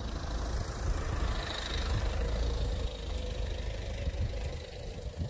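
A Kia Carnival minivan driving slowly past at close range, its engine and tyres on paving making a low steady rumble that grows louder through the middle of the pass and eases off toward the end.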